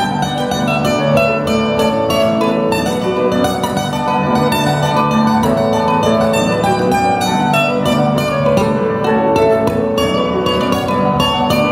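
Instrumental music played live on plucked string instruments: a run of quick plucked notes over held low notes.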